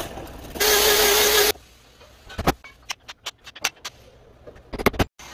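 A saw blade cutting a slot into the top of a wooden axe handle, loud and rasping with a steady hum, for about the first second and a half. Then scattered sharp knocks as a hammer strikes around the handle.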